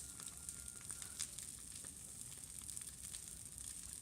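Big bonfire burning: scattered sharp crackles and pops over a steady rushing noise.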